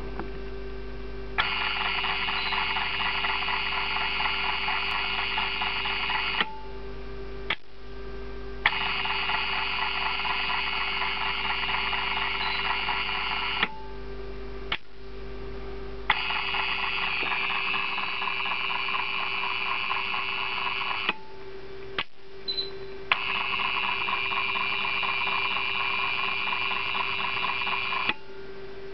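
RTs-61 motor-driven timer relay cycling over and over: its timing motor and gear train whir for about five seconds at a time, each run starting and ending with a sharp click of the relay switching. This happens four times, with a steady electrical hum underneath.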